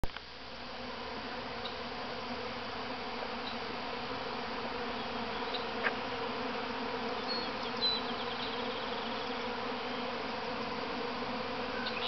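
A honey bee swarm in flight: the steady drone of a great many bees' wings humming together, the sign of a colony swarming out of its hive.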